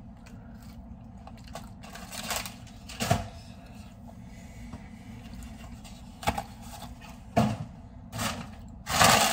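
Takeout food packaging and small sauce cups being handled: scattered short clicks and rustles a second or more apart, the loudest just before the end, over a faint steady hiss.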